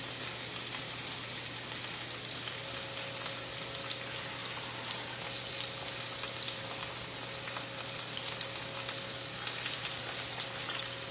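Chicken pieces frying in oil in a pan, with a steady sizzle and crackle. The pieces have been turned over and their second side is frying.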